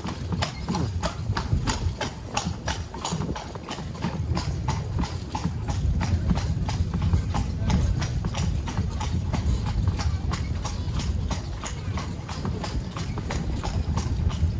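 Carriage horse's hooves clip-clopping in a steady, even rhythm on paving stones as the carriage moves along, with a low rumble underneath.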